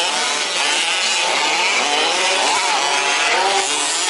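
Several 1/5-scale RC trucks' small two-stroke petrol engines running and revving together, their pitches rising and falling as the trucks race around the track.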